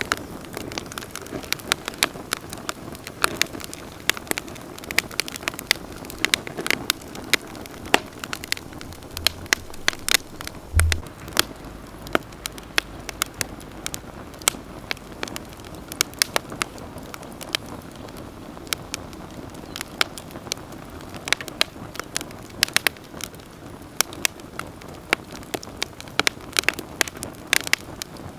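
Wood campfire crackling steadily, with many sharp pops and snaps over a low steady hiss of burning. A soft low thud comes near the middle.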